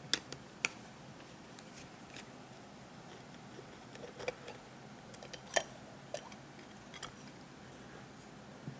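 Scattered light metallic clicks and taps from small tools and parts as a scooter carburetor is taken apart, irregularly spaced, the sharpest near the start and about five and a half seconds in.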